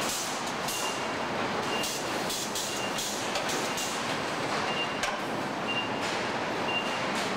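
Car assembly line running: a steady hum and hiss of conveyor and tooling, a short high warning beep about once a second, and a few sharp metal clanks.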